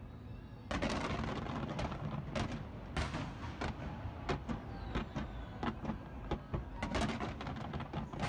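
Fireworks display going off in rapid, irregular bangs and crackles, starting abruptly about a second in and continuing densely.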